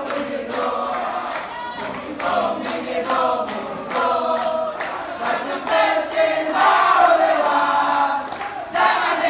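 A group of young voices chanting and singing a yel-yel, an Indonesian group cheer, loudly in unison with a rhythmic, syllable-by-syllable delivery.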